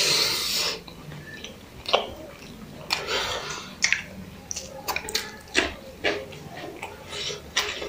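Close-miked wet mouth sounds of a man eating biryani by hand: a hissing slurp as he takes a mouthful, then chewing with many short lip smacks and clicks.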